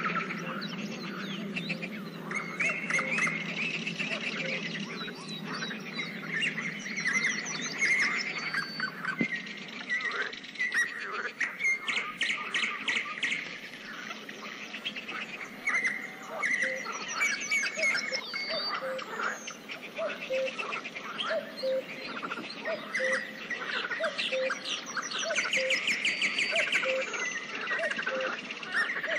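Pond ambience of many birds singing and calling at once, with overlapping chirps and quick trills. In the second half a low note repeats about once a second beneath them.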